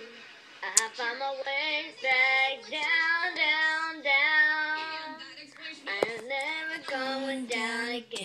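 A girl singing a song alone with no accompaniment, holding long notes with short breaks between phrases. A sharp click comes just under a second in.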